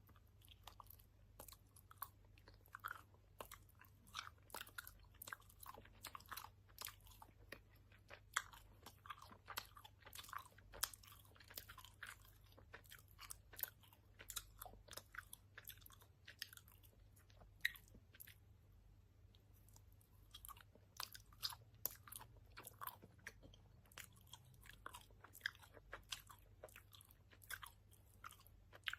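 Faint chewing with lip-smacking over sour-powder-coated soft gummy candy: a steady run of small wet mouth clicks, several a second.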